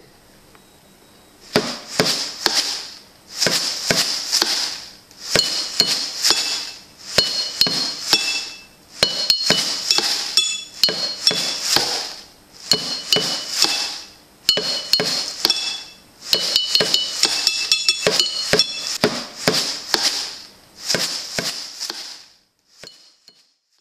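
Rhythmic clinking and jingling percussion: bursts of sharp metallic clicks with short bright ringing tones, about one burst a second, stopping just before the end.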